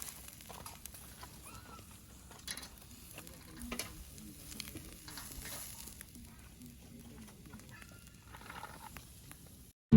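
Faint sizzling and scattered crackling from a wood-charcoal campfire grill with meat cooking over it. The sound cuts off abruptly just before the end.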